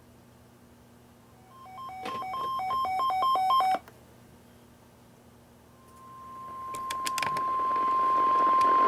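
Weather radio receivers alerting. First comes a short electronic beeping pattern, alternating between two pitches and growing louder, which cuts off about four seconds in. After a pause, the steady warning alarm tone starts, about 1050 Hz, and builds in level over rising static with a few clicks.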